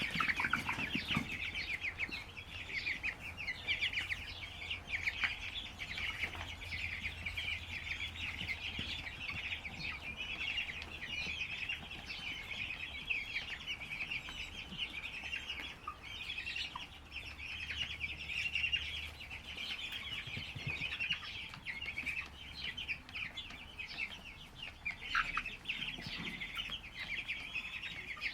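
A large brood of young poultry chicks peeping continuously, many short high chirps overlapping.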